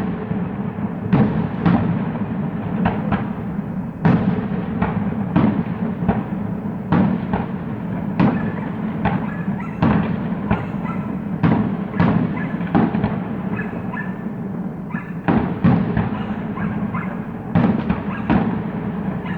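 Fireworks display: aerial shells bursting in a long run of sharp bangs at irregular spacing, often more than one a second, over a continuous rumble and crackle.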